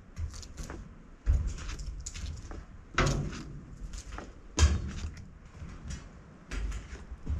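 A series of irregular knocks and thumps: four heavier ones roughly every second and a half, with lighter clicks in between.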